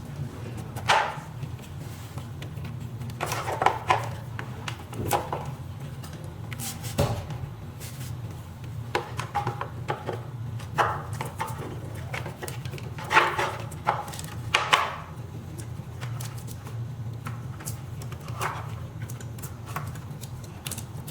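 Irregular knocks and clicks of an electric scooter's battery, cables and plastic parts being handled and pushed back into place during reassembly, over a steady low hum.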